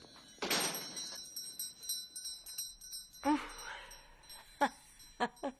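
A small shop-door bell jingling as the door swings open, its ringing dying away over about a second. A few sharp knocks follow in the second half.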